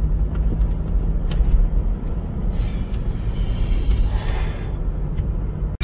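Road and engine noise inside a moving car's cabin: a steady low rumble and hum, with a hiss that swells for a couple of seconds midway.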